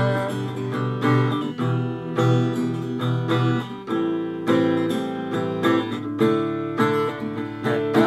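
Acoustic guitar strumming chords in an instrumental break of a song, with no singing.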